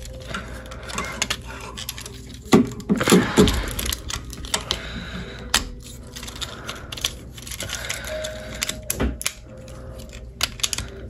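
Hard plastic parts of a Transformers Battletrap action figure clicking, snapping and rattling against each other as it is handled and pushed into place, in short irregular clicks.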